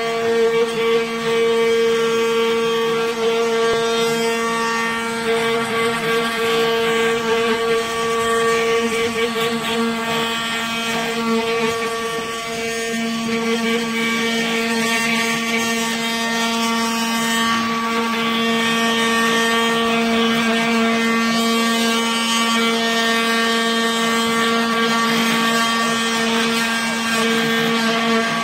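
Homemade CNC carving machine at work on wax: its small spindle motor and centrifugal blower fan give a steady, pitched machine whine.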